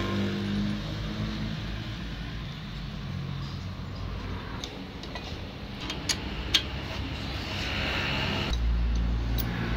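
Steady machinery hum in the background, with a few sharp clicks and taps of small metal fuel-pump parts, a ball and spring, being fitted into a valve body by hand. A deep low rumble comes in about a second before the end.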